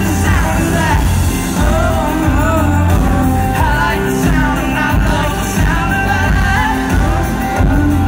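Live band performing a country-pop song: a male lead vocal sings over acoustic and electric guitars with a steady bass and drum beat.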